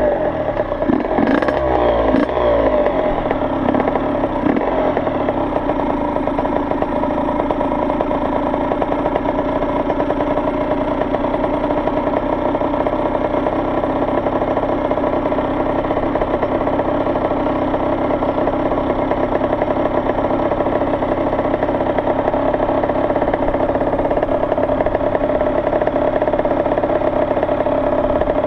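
Yamaha YZ85 dirt bike's two-stroke single-cylinder engine, with a couple of short revs in the first few seconds, then idling steadily.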